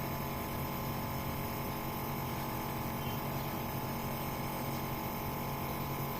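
A steady electrical hum, several pitches held at once without any change in level.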